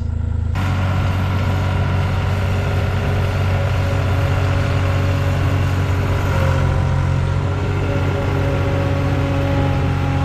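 Vehicle engine working under heavy load, pulling a trailer of eight heavy hay bales out of a steep hill. It rises sharply about half a second in, then holds a steady drone whose pitch shifts slightly a few seconds later.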